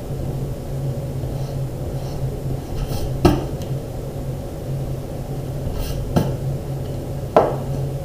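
A pencil sketch on paper being erased by hand, soft rubbing under a steady low hum. Three sharp knocks come about three, six and seven seconds in, the last the loudest.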